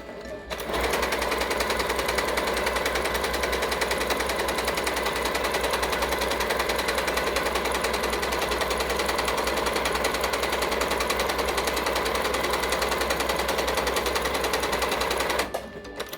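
Yamata digital sewing machine stitching a built-in decorative pattern: a steady, fast needle rhythm that starts about half a second in and stops shortly before the end.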